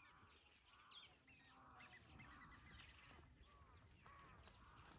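Faint calls of several birds: short chirps and arched calls overlapping and repeating throughout.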